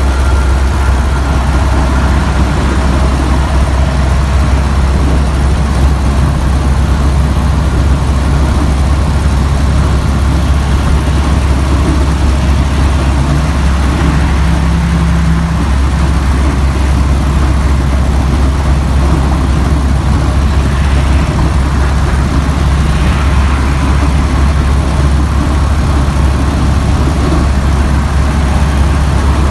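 Old car's engine running steadily at an even, low pitch, with no revving.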